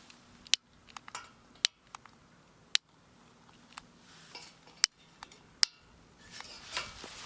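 A series of sharp clicks and clinks, about one a second at irregular spacing, from hard camping gear or cookware being handled, with some soft rustling near the end.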